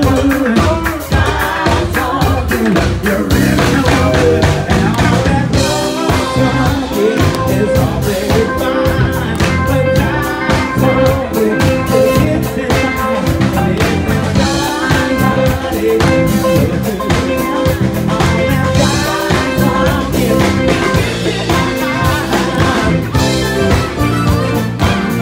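Live band playing an upbeat song with a steady drum beat and singing.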